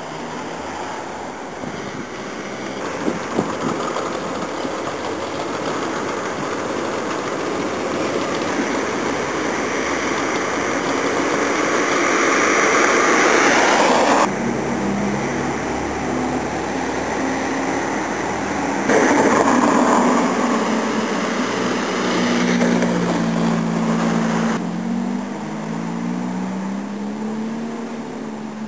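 Diesel engine of a concrete mixer and boom pump truck running steadily, its pitch shifting up and down over the last few seconds. Before that comes a louder, steady rumble of construction-site noise that changes abruptly several times.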